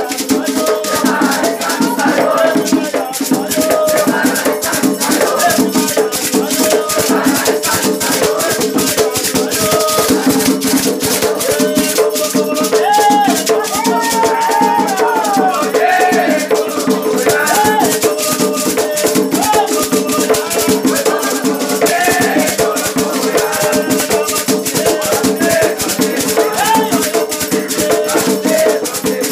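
Afro-Brazilian batuque ritual music for Oxum: a shaken rattle played in a fast, steady rhythm, with chanted singing rising and falling over it.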